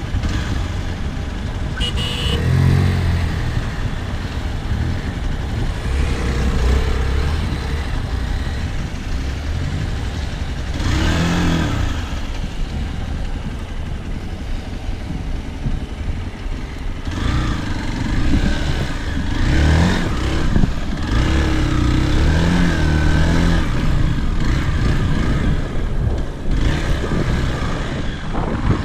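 Hero Xpulse 200 motorcycles running and revving, the engine note rising and falling again and again as the bikes are worked hard off-road, with the busiest revving in the second half.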